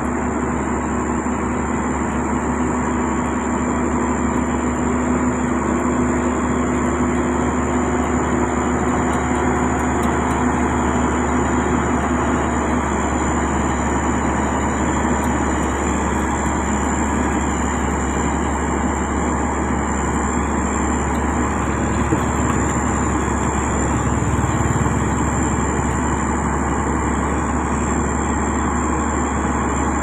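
Diesel engine of heavy road-construction machinery running steadily under load, with a low pitched drone that fades out about twelve seconds in.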